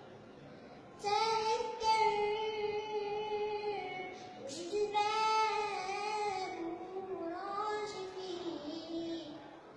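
A young girl singing an Arabic nasheed solo, with no instrument behind her. There are two long phrases: one starting about a second in, and a longer one from about four and a half seconds that slides down through several held notes.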